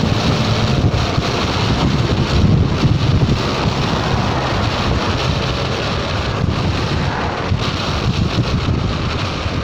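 Wind rushing over the microphone of a Honda Forza 300 scooter at road speed, loud and steady, covering the scooter's engine and road noise underneath.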